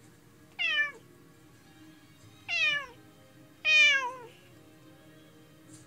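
Domestic cat meowing three times, each call sliding down in pitch, the third the loudest and longest. It is the lonely crying of a cat left alone, which the owners suspect is separation anxiety.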